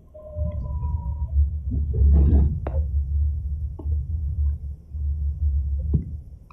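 BART train running with a steady deep rumble. Near the start a pair of steady high squealing tones sounds for about a second, and there are a few sharp clicks and knocks later on.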